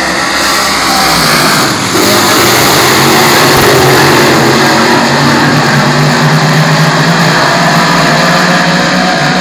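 A pack of dirt modified race cars at racing speed, many V8 engines running loud at once in overlapping notes, getting louder about two seconds in.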